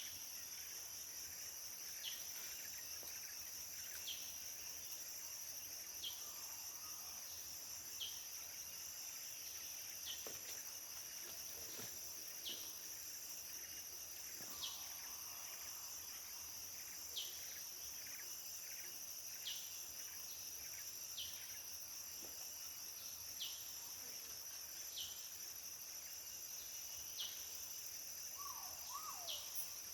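Tropical forest insects, such as cicadas and crickets, droning steadily at a high pitch. Over the drone, a bird gives a short, high, falling note about every two seconds.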